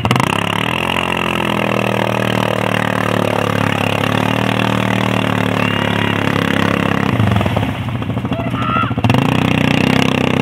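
Quad bike (ATV) engine revving up and down under load as the machine churns through deep mud, its pitch rising and falling with the throttle. It eases off for a moment about three-quarters of the way through, then revs harder again.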